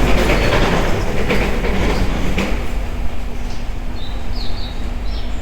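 Subway train running at an underground station platform: a loud rumble and clatter for about the first two and a half seconds that then eases off over a steady low hum. A few short high squeaks come near the end.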